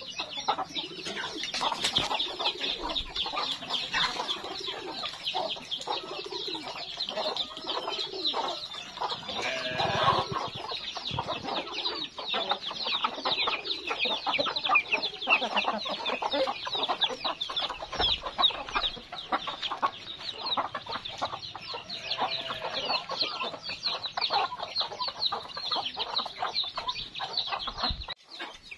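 A flock of free-range village chickens (ayam kampung): many chicks peeping constantly in quick, high, falling chirps, with hens clucking lower underneath.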